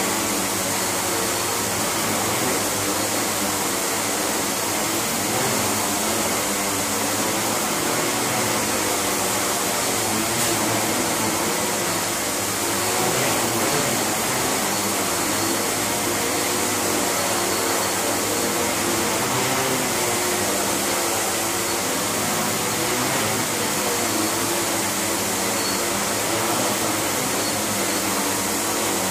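A hexacopter's six electric motors and propellers running steadily with a dense whir, its pitch wavering slightly as the PID attitude controller varies the motor speeds to hold the craft level.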